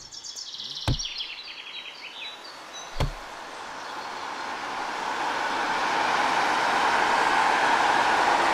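Two sharp axe chops into wood about two seconds apart, with birds chirping at first. From about four seconds in, a rushing vehicle noise swells up and holds loud, like a car approaching.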